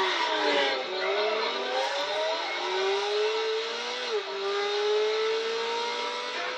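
Ferrari sports car engine revving hard as the car accelerates, its pitch climbing, dipping once about four seconds in, then climbing again. It comes from a film soundtrack played on a TV and picked up off the room.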